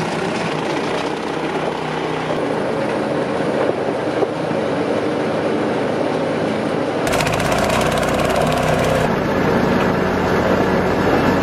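Small petrol engine running steadily to drive a belt conveyor, with the belt and its load of wood clattering along. A couple of sharper knocks come about four seconds in.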